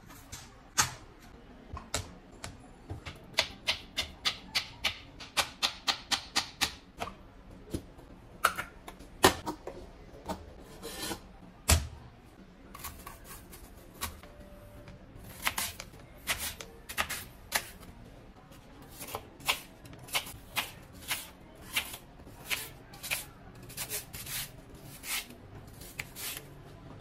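Knife cutting an apple on a plastic cutting board: runs of sharp taps as the blade goes through the fruit and strikes the board, up to about three a second.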